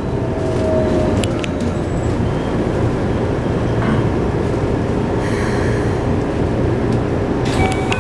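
Keikyu 600 series EMU heard from inside the car as it brakes into a station: a steady rumble of wheels and motors, with the whine of its Toyo GTO-VVVF inverter falling in pitch in the first second and a few sharp clicks. Near the end a run of electronic chime tones begins.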